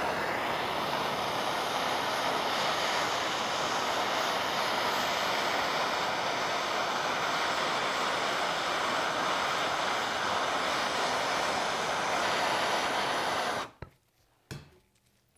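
Handheld gas torch burning with a steady hissing flame while it heats an aluminium throttle body to free a stuck screw. The flame cuts off about a second and a half before the end, followed by a couple of faint clicks.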